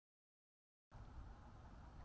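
Near silence: the sound is cut out completely for almost a second, then a faint steady low background rumble and hiss comes in.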